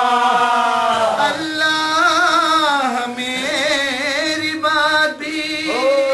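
A man's voice chanting a mourning elegy for Imam Husain without accompaniment. He draws out long wavering notes that slide from one pitch to the next, with quick up-and-down ornaments near the end.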